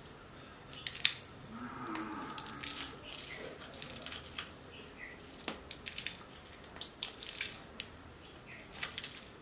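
Dried red chillies being broken apart by hand, their brittle skins crackling and snapping in quick, irregular clicks.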